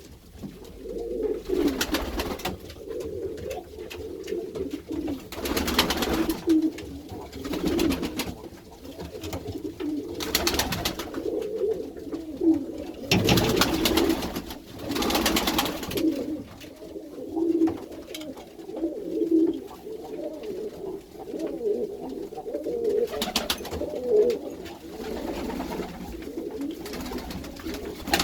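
Many Iranian domestic pigeons cooing continuously in an enclosed loft, their calls overlapping into a steady low murmur, broken by several short noisy bursts.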